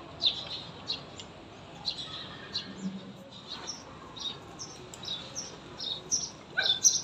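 Small birds chirping: many short, sharp, high chirps in quick irregular succession, growing louder and busier near the end.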